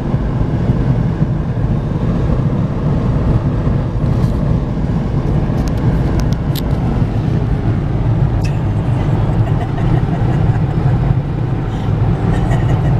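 Steady low rumble of road and engine noise inside a car's cabin at highway speed, with a few faint clicks around the middle.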